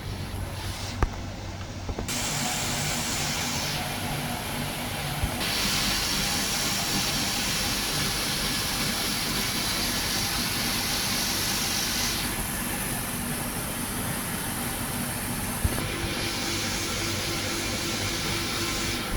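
Air conditioner outdoor unit running: a steady whoosh of fan air over a low hum. The whoosh grows louder about two seconds in, is brightest for several seconds in the middle, and eases and swells again near the end, with a couple of short clicks.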